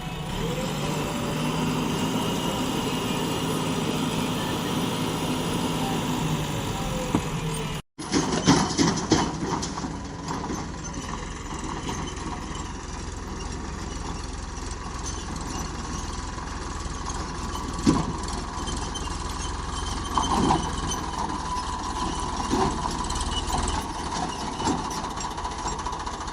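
Diesel engine of a backhoe loader running steadily, then, after a cut about eight seconds in, running on with a string of sharp metallic knocks and clanks scattered through the rest.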